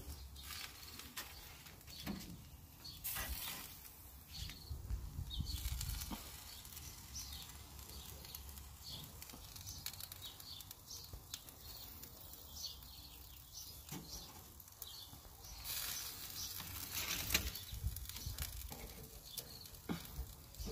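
Faint outdoor ambience: scattered small bird chirps, with a few short bursts of hiss about three seconds in and again from about sixteen to eighteen seconds in.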